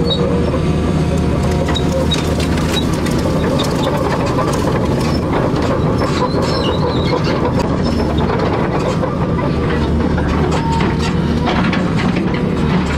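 Excavator's diesel engine running steadily, with frequent metallic clanks and rattles throughout.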